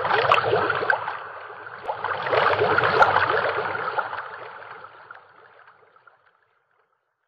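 Outro sound effect of a TV channel's logo animation: a crackling rush of noise that swells twice and fades out about six seconds in.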